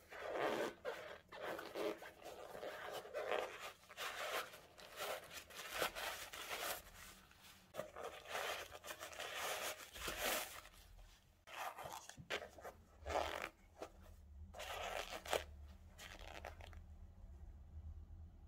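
Crumpled packing paper crinkling and rustling in irregular bursts as it is handled and pulled out of a new sneaker. The rustling dies down near the end.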